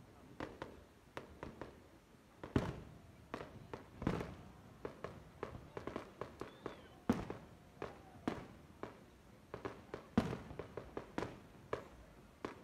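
Aerial fireworks shells bursting: a rapid, irregular run of bangs and crackles, with four louder booms standing out.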